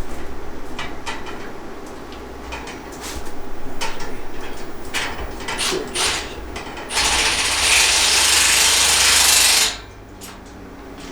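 Ratcheting clicks as fasteners are tightened on a metal battery rack. About seven seconds in, a power tool runs loud and steady for about three seconds, then stops suddenly.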